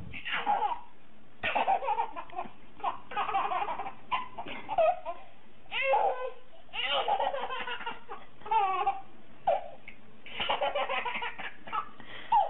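A baby laughing in a string of bouts, one after another, with short pauses between them.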